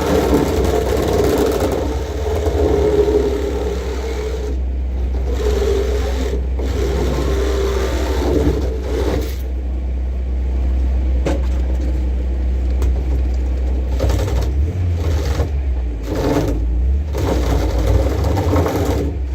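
An electric power tool running in repeated bursts, stopping and restarting several times, over a steady low drone.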